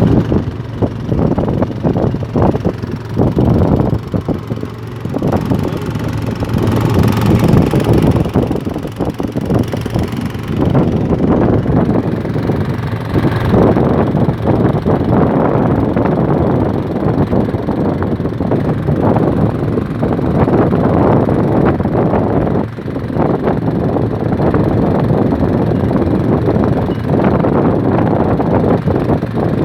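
Fishing boat's engine running steadily and loudly.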